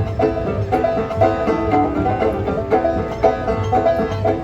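Background music: a banjo picking a quick tune over a steady low beat.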